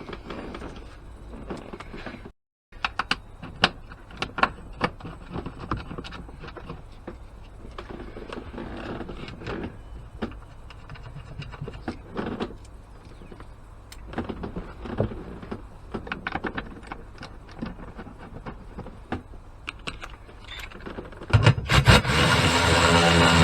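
Irregular clicks, clunks and rattles of hand tools and metal and plastic parts being handled while components are refitted around a car battery. Music with guitar comes in loudly near the end.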